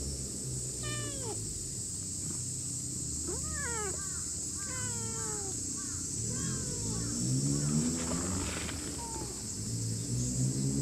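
A cat meowing about five times: short calls that mostly slide down in pitch, under a steady high hiss and a low hum that climbs in pitch near the end.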